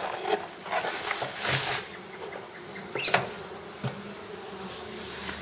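Honeybee colony in an opened wooden hive buzzing as a steady hum. A few brief scrapes and knocks come about a second and a half and three seconds in as the galvanized metal lid is handled and lifted off.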